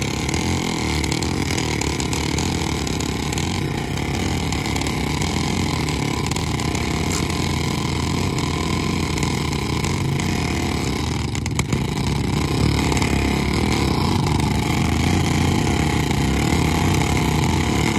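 Two Royal Enfield Bullet 350 single-cylinder engines, one carburetted and one fuel-injected, running steadily under heavy load as the two motorcycles pull against each other on a tow rope.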